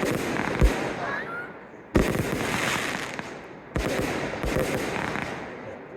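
Fireworks display: deep bursting thumps amid dense crackling. Sharp bangs come about two seconds in and again near four seconds, each followed by a crackle that fades away.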